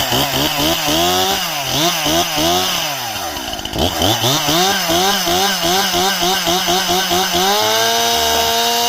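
STIHL MS261 two-stroke chainsaw revved in repeated quick throttle blips, its pitch rising and falling, dropping back to idle briefly about three and a half seconds in, then held at high revs near the end, where it screams.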